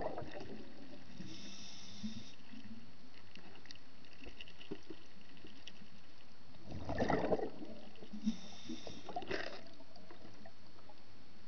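Underwater sound around a camera in the water: a steady hiss, broken by a short cluster of bubbling, gurgling bursts about seven seconds in and a briefer one just after nine seconds.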